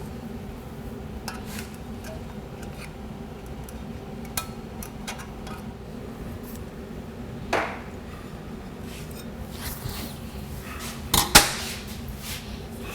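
Metal transmission parts clicking and clinking against each other as the overrun clutch spring cage and snap ring are worked into a 4L60E input drum by hand. Scattered light clicks, a sharper knock about halfway through, and the loudest pair of metallic snaps near the end, over a steady hum.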